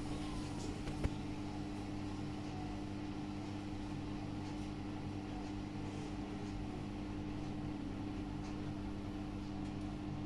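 Samsung WW80R421HFX front-loading washing machine running with a steady hum. A motor whine falls in pitch at the start, and there is a single click about a second in.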